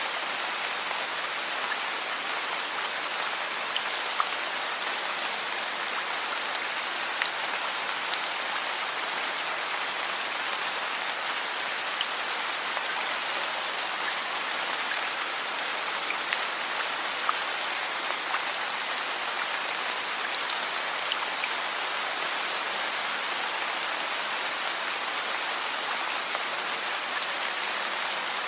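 Steady rain falling on a surface, an even hiss of dense raindrops with scattered individual drop ticks.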